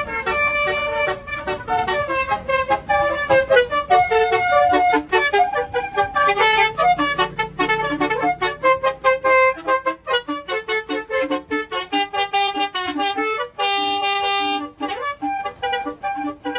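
Musical vehicle horn playing a quick melody of many short notes, with one longer held note near the end.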